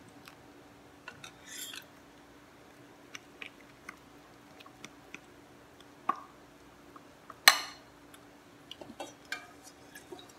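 Metal spoon stirring a thick flour and corn-starch batter in a ceramic bowl: scattered light clinks and scrapes of the spoon against the bowl, with one sharp clink about seven and a half seconds in.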